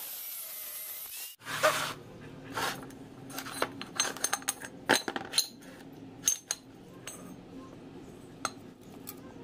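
A steady hiss cuts off abruptly a little over a second in. Then come a run of sharp metal clinks and knocks, as of steel pieces being handled and set down, over a low steady hum.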